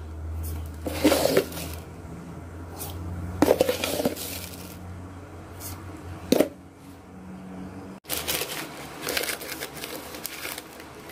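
A utensil knocking and scraping against a cooking pot in a few separate clinks while sugar is added to the kolak, over a low steady hum.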